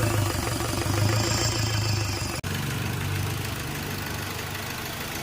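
Hyundai Accent CRDi common-rail diesel engine idling just after catching from cranking, a little louder for the first two seconds, then settling to a steady idle. A sudden momentary dropout about two and a half seconds in.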